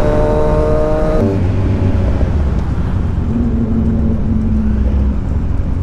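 Kawasaki Z900's inline-four engine holding a steady note at cruising speed, which drops away abruptly about a second in as the throttle is closed. The bike then slows with wind and road rumble, and a faint low engine hum comes back a few seconds later.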